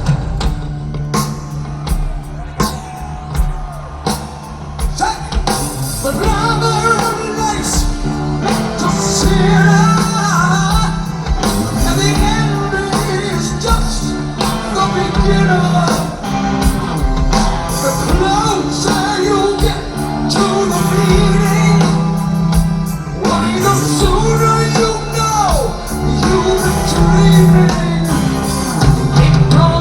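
Live heavy metal band playing in a large hall, with singing over the guitars, bass and drums; the sung melody comes in about six seconds in.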